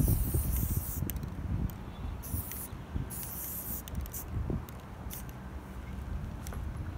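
Aerosol spray-paint can hissing in a series of short bursts as black paint goes onto a plastic tarp, the longest bursts in the first second and around two and three seconds in, then a few brief puffs, over a steady low rumble.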